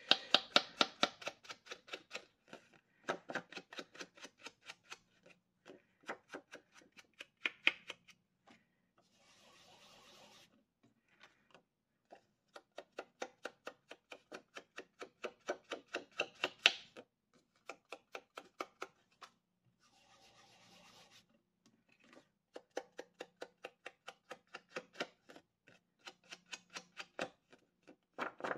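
Foam finger dauber dabbing ink along the edge of a paper card: runs of quick, dry taps, several a second, broken by short pauses. There are two brief rubbing sounds, about a third of the way in and again about two-thirds in.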